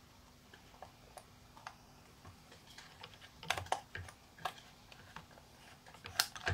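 Small clicks and taps of a Rollei Magic twin lens reflex camera and a 120 film spool being handled as the film is loaded: a few faint ones at first, then louder clusters about three and a half seconds in and near the end.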